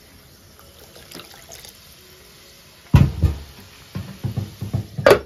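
Pot of mushroom gravy simmering with a soft, even bubbling. About three seconds in comes a sudden loud thump, then a quick run of clattering knocks on the cooking pot.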